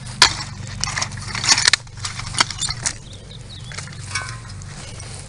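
Wood bonfire crackling, with sharp irregular pops, several close together in the first three seconds and fewer after, over a low steady rumble.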